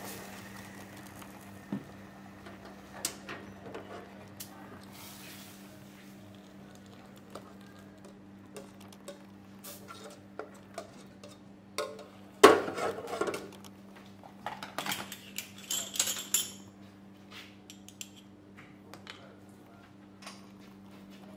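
Scattered kitchenware clinks and knocks: a metal ladle against a steel pot and porcelain bowls, and porcelain spoons set into bowls. The loudest clatter comes about halfway through.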